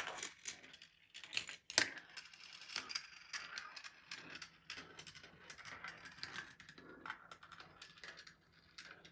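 GraviTrax marble run in motion: marbles rolling along the rails and clattering through the plastic track pieces, a fast irregular patter of small clicks with a sharper clack about two seconds in.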